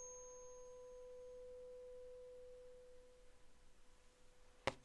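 Struck tuning fork ringing on one steady pure note, slowly fading, with a sharp tap near the end.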